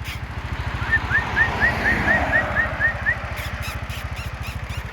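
A small engine, likely the rider's motorcycle, idling with an even low pulse. About a second in, a bird gives a quick run of about nine short rising chirps.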